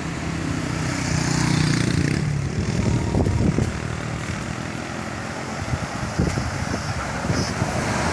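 Large bus engine running as it passes, a steady drone for about the first two seconds, giving way to rougher road and wind noise with a few short knocks.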